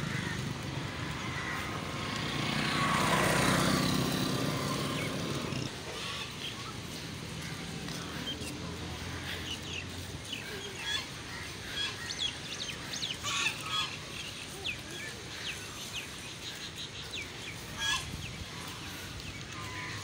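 Domestic geese honking, many short calls one after another from about six seconds in. Before that, a louder rumbling swell fills the first few seconds.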